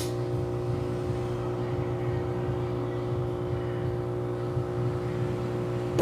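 Brastemp top-load washing machine running on spin with its actuator removed, so only the agitator turns: a steady motor hum with no knocking heard.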